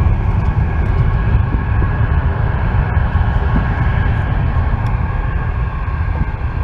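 Distant jet airliner on the runway: a steady low rumble that eases slightly near the end.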